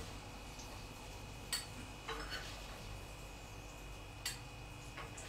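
A few light clinks of kitchenware, spread out: one about a second and a half in, a softer one just after two seconds, and another about four seconds in, as chips are lifted out of a bowl with a serving utensil.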